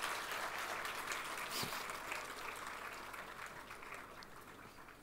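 Large audience applauding, the clapping fading away steadily and nearly gone by the end.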